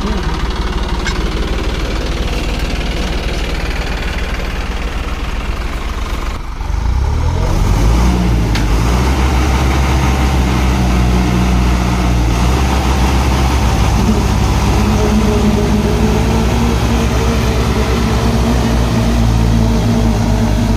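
Diesel engines of a Sonalika Tiger 55 4WD and a Massey Ferguson 9500 tractor running hard as the two pull against each other under heavy load. After a brief dip about six seconds in, the engine note rises and holds louder and steady.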